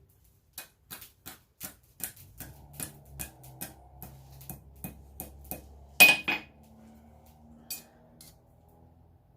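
Hand hammer striking steel stock on an anvil in light, even blows, about three a second, with one louder strike about six seconds in. A low steady hum comes in a few seconds in.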